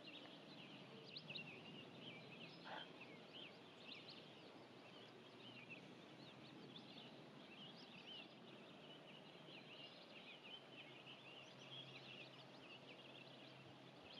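Faint chorus of many forest songbirds: a steady scatter of short, high, overlapping chirps and trills.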